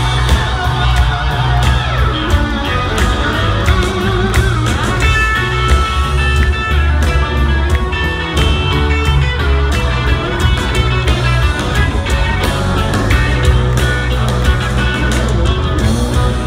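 Live rock band playing loud through a venue PA, electric guitars over heavy, booming bass, heard from inside the crowd.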